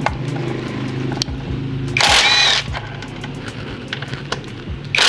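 Cordless impact wrench with a 14 mm socket loosening bolts on a scooter: two short, loud bursts of hammering, about two seconds in and again near the end, with light clicks of the socket and bolt between them.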